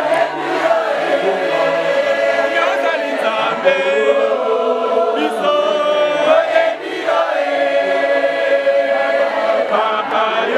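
A choir singing together, many voices holding long notes.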